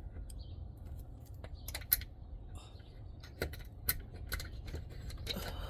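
Scattered small metallic clicks and taps, irregularly spaced, as a cotter pin is worked into the hole of a screen door's hinge bracket, metal knocking on metal.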